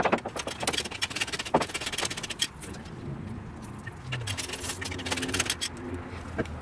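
Ratchet socket wrench clicking in rapid runs as lug nuts are backed off a steel wheel, then a few scattered metallic clinks as the loosened nuts are handled off the studs.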